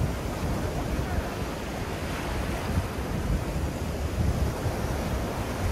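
Wind buffeting the microphone in gusts over choppy river waves breaking and washing onto a sandy shore.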